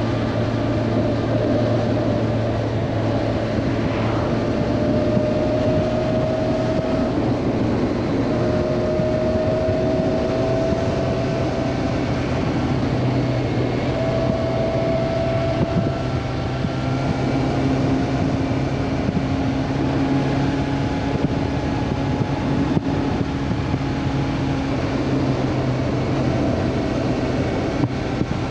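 Honda CB400 Super Four's inline-four engine running while riding, with wind noise. Its note climbs slowly and drops back three times in the first half, then holds steady.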